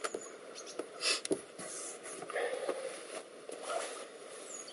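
Faint scattered scraping, rustling and small clicks of hands working a rubber window seal and its locking strip.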